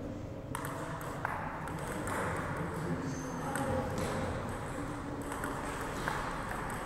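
Table tennis rally: the ball clicking off the paddles and the table in a quick, uneven back-and-forth.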